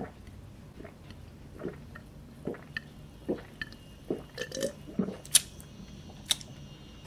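A man gulping a drink from a glass jar, one swallow about every three-quarters of a second, the swallows coming quicker past the middle. There are a couple of sharp clicks near the end.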